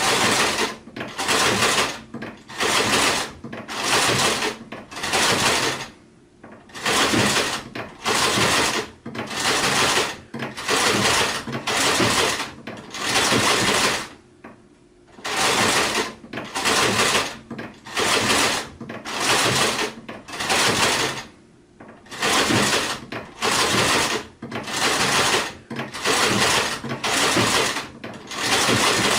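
Sewing machine stitching in short runs, over twenty of them, each about half a second long at roughly one a second, with brief stops between and a few slightly longer pauses.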